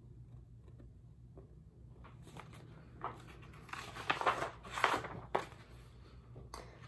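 Pages of a large picture book being turned by hand: paper rustling that starts about two seconds in, with several louder rustles near the middle, then dies down.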